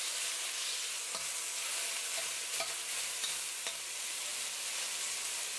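Chicken strips sizzling in hot oil in a wok, a steady hiss, with a few faint taps of a metal wok spatula as the pieces are flipped.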